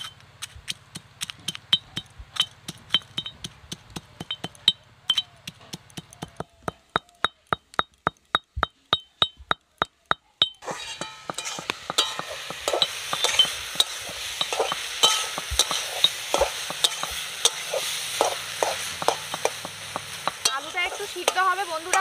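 A pestle pounding spices in a small iron mortar, about three sharp blows a second, each with a short metallic ring. About ten seconds in this gives way to the steady sizzle of potato and cauliflower frying in a kadai, with scattered knocks.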